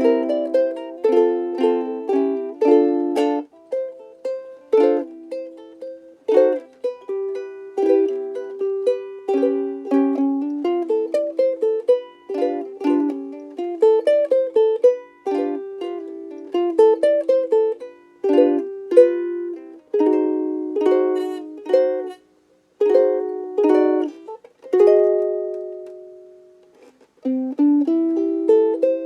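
Frayns FRUK-3MS soprano ukulele, solid Honduras mahogany body with an ebony fingerboard, played solo: plucked melody notes over chords. The playing pauses briefly about two-thirds of the way through, and a chord is left ringing near the end.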